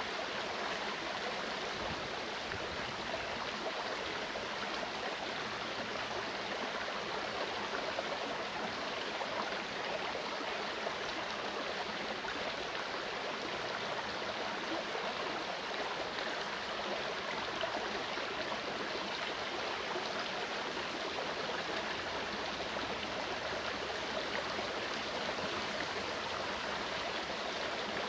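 Mountain stream running steadily over rocks, an even rushing and burbling of water.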